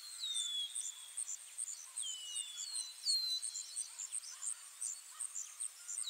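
Birds whistling, several short calls that each slide down in pitch, over a high, regular insect chirping of about two pulses a second.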